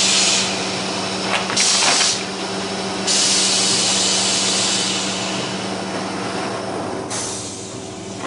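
Plastic vacuum forming machine running, with a steady hum under loud bursts of air hissing. One burst ends about half a second in, a short one comes near 2 s, and a longer one starts sharply at about 3 s and fades out by about 7 s. A few light clicks come around 1.5 s.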